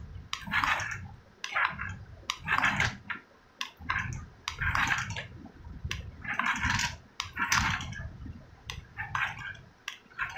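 Remote-control toy car driven in short stop-start bursts across a glass counter: its small electric motor and gears whir in noisy bursts, about one a second.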